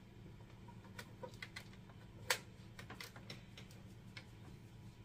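Faint scattered clicks and taps of a plastic magnifying lamp being handled as its arm and head are swung into position, with one sharper click about two seconds in.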